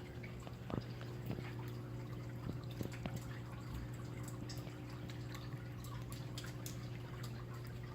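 Water dripping and trickling from a garden fountain, over a steady low hum.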